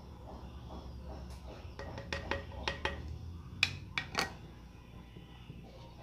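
Light clicks and taps of a plastic lid as crushed fish food is tapped off it into a small glass aquarium: a string of about nine quick taps over a few seconds, the sharpest just past the middle.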